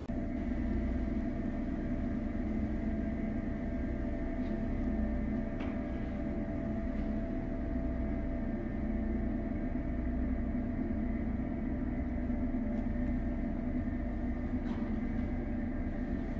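Steady mechanical hum made of several held tones, with a few faint clicks.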